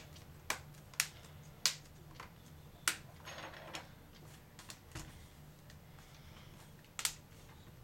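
Plastic screen bezel of an Acer Aspire One D255 laptop being pressed back onto the lid, its clips popping into place as a series of sharp, irregularly spaced clicks, with a brief rub of plastic on plastic partway through.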